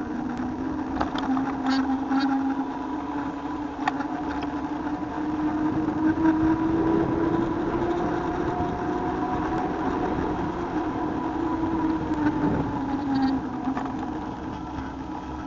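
A motor running under way, its steady hum rising slowly in pitch and then dropping back near the end, with rattling clicks and road or wind noise underneath.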